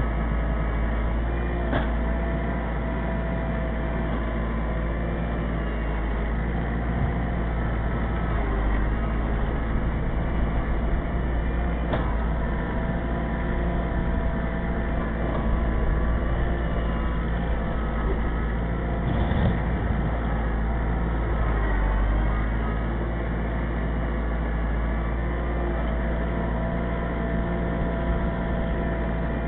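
Kubota L4400 HST tractor's four-cylinder diesel engine running steadily, with two brief sharp knocks along the way.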